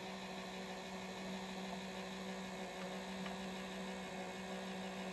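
Steady low electrical hum from the N scale model railroad turntable turning with a locomotive on its bridge: one even tone with fainter overtones above it.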